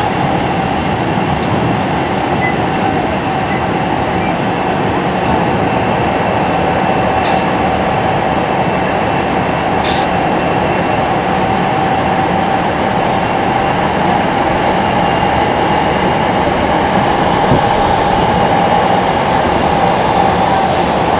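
Nagoya Municipal Subway 3050 series train running steadily at speed through a tunnel: an even rumble of wheels on rail, with a steady whine over it.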